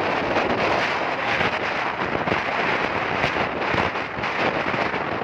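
Heavy wind buffeting on the microphone while riding a motorcycle at highway speed, mixed with the running of motorcycle engines. A steady, crackling rush with no pauses.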